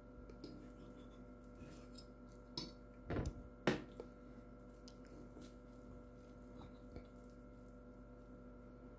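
Metal fork clinking and knocking against a plate a few times while cutting into an omelet, the loudest knocks a little past the middle, over a steady low hum.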